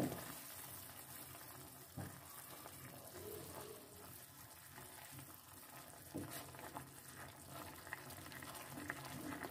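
Wooden spoon stirring flour into vegetables in hot chicken stock in a metal pan: a faint wet bubbling and swishing, with a few soft knocks of the spoon against the pan.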